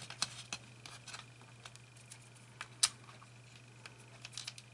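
Small, scattered metallic clicks and taps as the nuts are fitted by hand onto the Fender Mustang I's jack sockets at the front panel, the sharpest click a little before the three-second mark and a quick run of them near the end. A steady low hum runs underneath.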